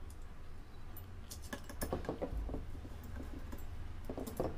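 Small clicks and taps of screws, a screwdriver and plastic frame parts being handled while fitting a quadcopter's GPS mount, in a cluster about a second in and another near the end, over a low steady hum.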